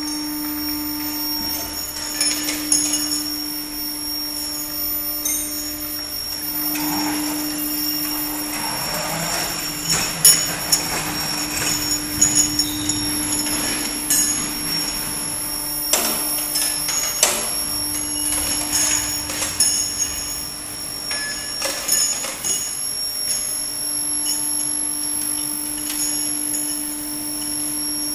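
Induction annealing line running: a steady hum and a steady high-pitched whine, with irregular metallic clanks and clicks as steel link rods are loaded into the conveyor fixtures.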